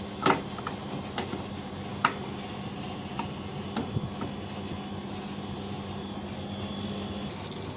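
A steady low machine hum that stops near the end, with scattered light knocks and clicks over the first half.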